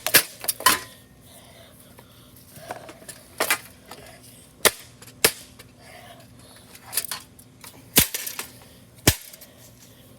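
Sharp knocks and cracks of a ceiling fan being smashed apart: about ten separate hits at irregular intervals, several close together in the first second, then roughly one every second or so.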